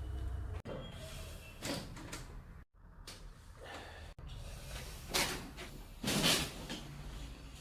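A few short knocks and thumps from a chiropractic adjustment being performed, the loudest two near the end, with the sound cutting off abruptly a couple of times in between.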